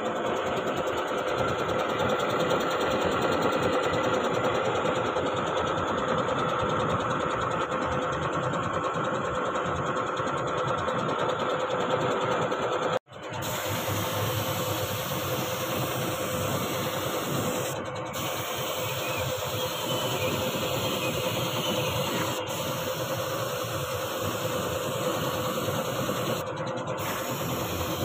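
Air spray gun hissing steadily as red paint is sprayed onto a steel cart, over a motor running steadily underneath. The sound cuts out for a moment about halfway through.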